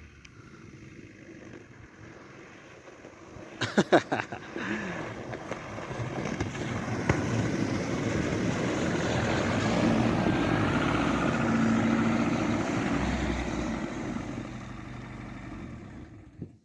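A car drives up over snow and ice, its engine and tyre noise growing louder to a peak about ten seconds in and then fading away. A few sharp knocks come about four seconds in.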